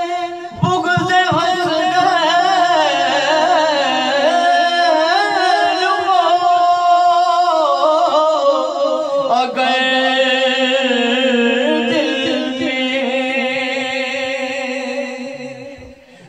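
A man singing an Urdu naat, a devotional poem in praise of the Prophet, in long held notes that waver and bend; it breaks briefly near the start and about halfway through, and fades out near the end.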